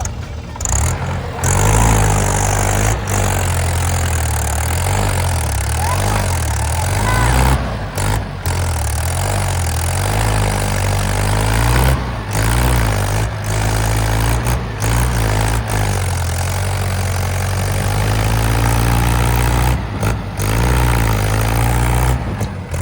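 Heavy diesel engine of working earth-moving machinery, running loud and revving up and down in steps as under hydraulic load, with several abrupt cuts in the sound.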